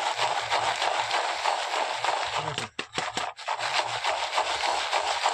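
Firework stars rolling and rattling around inside a small steel cup as it is swirled by hand, picking up a coat of black powder: a continuous gritty rubbing rustle with a few brief breaks about halfway through.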